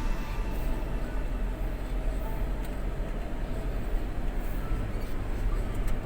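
Vehicle driving: a steady low engine and road rumble with a few light knocks.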